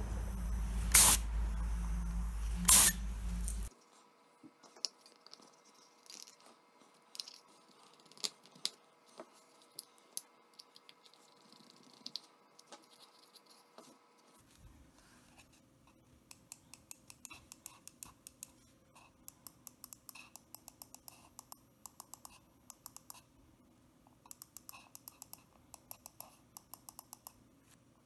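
Buttons of a carved wooden computer mouse clicked over and over in quick runs of sharp clicks, several a second, with short pauses between runs through the second half. Near the start, a few louder single clicks over a steady hiss.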